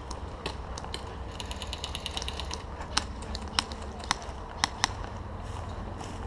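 A brief mechanical ratcheting rattle about a second and a half in, followed by five sharp clicks over the next two seconds, over a low steady rustle.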